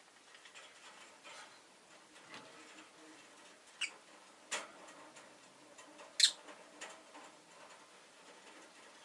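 Rosy-faced lovebird giving three short, sharp chirps, the loudest a little past the middle, with faint ticks and rustles between.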